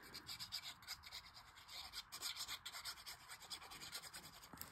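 Tip of a liquid glue bottle rubbing and dabbing along a strip of cardstock as glue is applied, a faint, irregular scratching.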